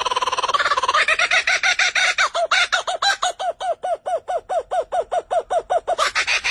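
Bird calling: a buzzy, rapidly pulsed call, then a fast run of short repeated notes, each rising and falling in pitch, about five a second, ending near the end.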